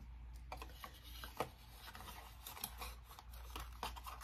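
Faint, irregular rustling, scraping and small clicks of cosmetic packaging being handled.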